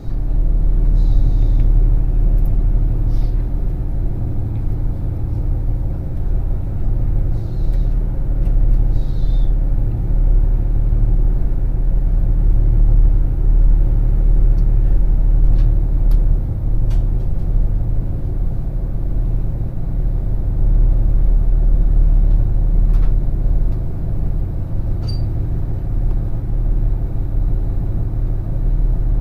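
KTR8500 diesel railcar running, a steady low rumble with a steady hum and a few faint, brief high squeaks.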